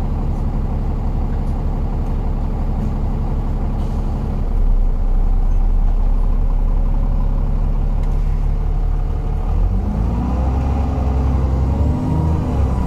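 Alexander Dennis Enviro 400 double-decker bus running: a steady idle, then a heavier low rumble from a few seconds in. Near the end a whine rises and falls as it pulls away.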